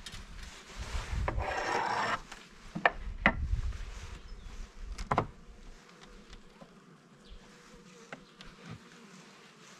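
Hive tool scraping the wooden hive parts to clear what the bees have sealed, with three sharp knocks around the middle. Bees buzz throughout, plainest in the quieter second half.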